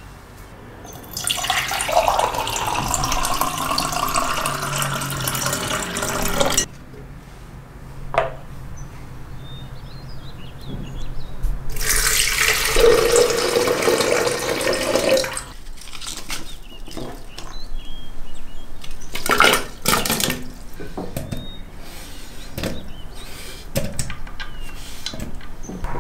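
Water poured in a steady stream, twice for several seconds each, the second pour into a plastic blender jug. Afterwards come scattered light knocks and clicks.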